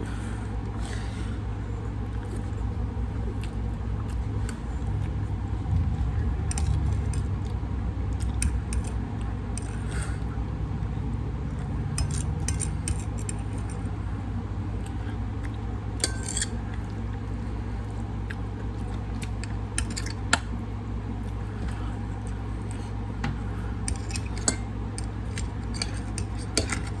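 Eating at a table: scattered clicks and clinks of utensils against dishes, over a steady low hum.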